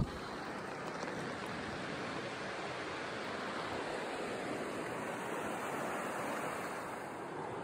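River water rushing steadily over rocks in a riffle, an even hiss with no distinct splashes.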